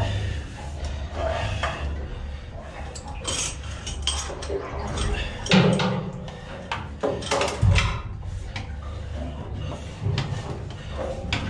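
Irregular metal clanks and knocks, loudest about five and a half and seven and a half seconds in, from an oil-drain hose and metal wand being handled around a plastic oil drum while old engine oil is drained. A steady low hum runs under them.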